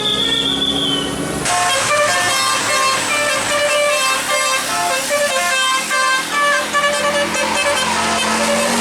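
Bus telolet horn, a set of musical air horns, playing a quick tune of short notes stepping up and down in pitch. The tune changes abruptly about a second and a half in.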